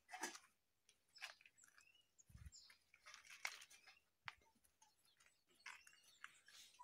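Faint, scattered high chirps and squeaks from small animals, with light clicks and scuffs and one soft low thump a little over two seconds in.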